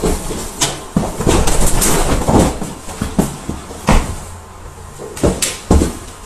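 Irregular thumps and knocks of a man's feet stomping and sliding on a tiled floor as he dances, with room echo, about ten hits spread unevenly through the stretch.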